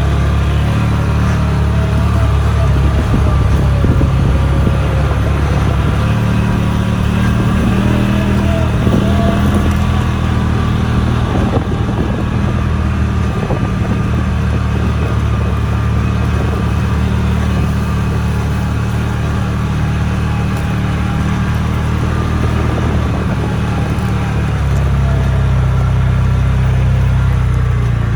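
A vehicle engine running steadily at a low, even speed, a continuous low hum.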